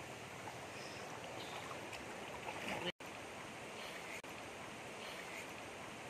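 Shallow stream running over rocks and boulders, a steady rush of water, broken by a brief gap of silence about three seconds in.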